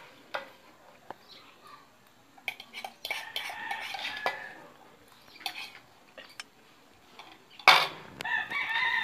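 Cutlery clicking and scraping against a plate in scattered separate clicks as the last noodles are scooped up, with one loud knock near the end.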